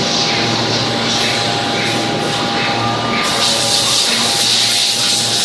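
Steady machine-shop noise from CNC machining centres running: an even hiss with a constant low hum and a steady high tone.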